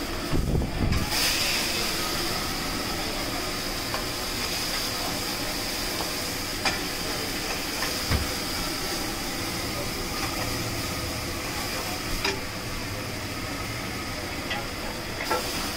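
A wok on a high-pressure gas burner hissing steadily from about a second in, with a few faint light clicks.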